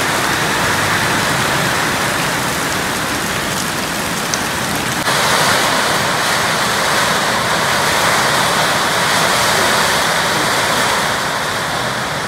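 Heavy rain pouring steadily onto a tin roof, a dense even hiss, a little louder and brighter from about five seconds in.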